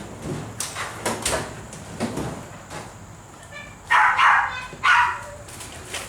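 A dog barking twice, about four and five seconds in, just after a short high whine; lighter knocks and taps come before.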